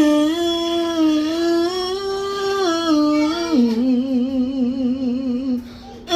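A solo voice singing a slow, melismatic run of long held notes with a wavering vibrato, stepping down to a lower note about three and a half seconds in.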